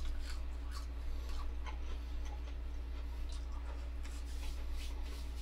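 Faint, irregular small clicks and scratchy rubbing over a steady low hum.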